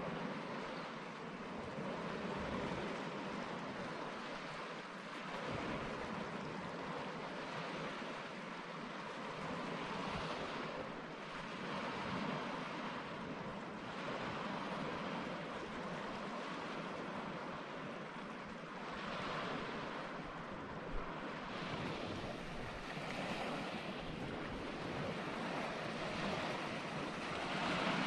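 Sea waves washing onto a sandy shore, mixed with wind: a steady rush that swells and eases every few seconds.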